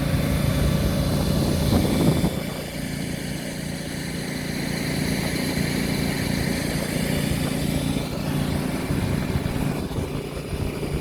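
Combine harvester running steadily, its engine's low hum under a hiss of machinery, briefly louder about two seconds in and then settling a little quieter.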